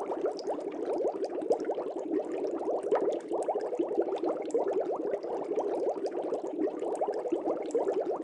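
Aquarium water bubbling steadily: a dense, unbroken stream of small bubbles.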